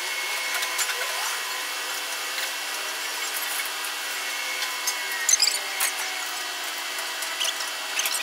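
Construction-site machinery running with a steady whine of several held tones, a short rising pitch about a second in, and a cluster of clicks and rattles about five seconds in.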